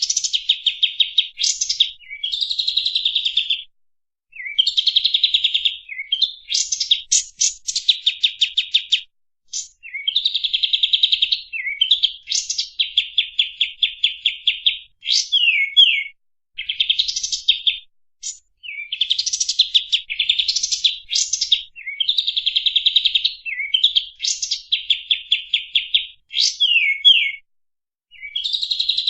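Kapas tembak songbird singing in fast, tightly packed rattling bursts, its 'tembakan' song. Each burst is a rapid train of short high notes lasting a second or two, repeated with brief pauses and a few quick down-slurred notes between.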